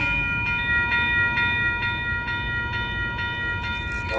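Amtrak train led by an F59PHI diesel locomotive approaching with a low rumble, while a grade-crossing warning bell rings at a steady rate of about two strikes a second.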